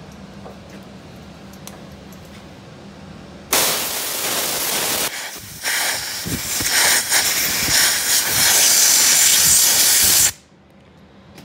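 Compressed-air blow gun hissing loudly at the freshly threaded breech plug, in a short blast and then a longer one, with wind buffeting on the microphone; it cuts off sharply.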